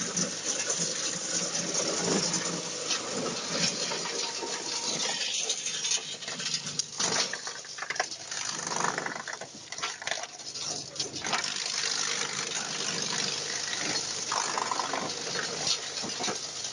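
Sawdust-making wood mill (shredder) driven by a 37 kW electric motor, running with a steady hum and a constant rattle and clatter of material going through it; the noise turns rougher and more uneven for a few seconds in the middle.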